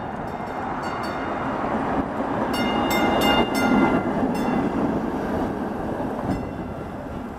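PCC streetcar rolling past close by on its rails: a rumble swells to its loudest about three to four seconds in, then eases off. Short high ringing tones come in pulses around the loudest part.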